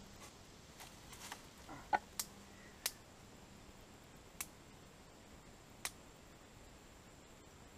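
Small twig fire crackling: scattered sharp pops at uneven intervals, the loudest about two seconds in, then sparser toward the end.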